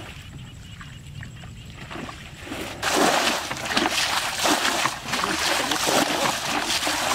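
Muddy ditch water splashing and sloshing as it is scooped up and thrown out with a bucket: repeated uneven splashes that start suddenly about three seconds in, after a quiet start.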